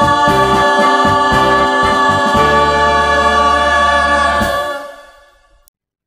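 Background music with voices singing a held chord that fades out to silence about five seconds in.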